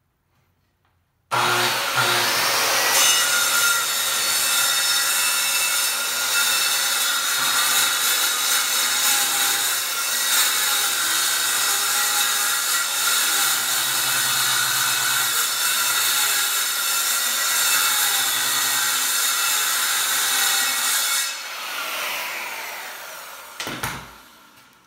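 Circular saw with a wood-cutting blade ripping a sheet of high-density polyethylene: the saw starts suddenly about a second in, runs steadily and a bit noisy through the cut, then is switched off near the end and winds down in a falling whine.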